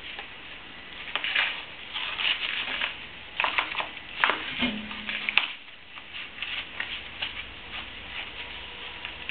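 Irregular light clicks and rattles of hands working on a dirtbike's handlebar controls, with the engine not running. A brief low tone comes about halfway through.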